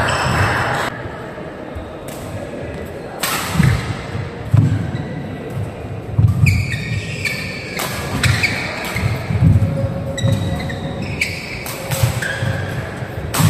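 Badminton rally: sharp racket strikes on the shuttlecock every second or two, with footfalls thudding on the court and short high squeaks between them. Voices murmur in the background.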